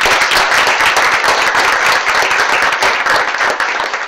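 Audience applauding: many people clapping at once in a dense, steady patter of claps.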